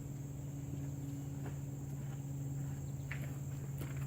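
Steady background noise: a low hum and an even, high-pitched buzz, with a few faint clicks.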